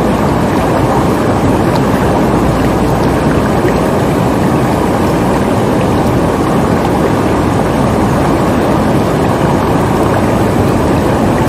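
Shallow, fast-flowing river rushing over stones and gravel close by: a loud, steady, unbroken rush of water.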